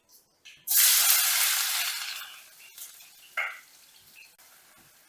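Food dropped into hot oil in a pan, sizzling loudly at once about a second in and dying away over the next couple of seconds, with a brief second flare of sizzle later.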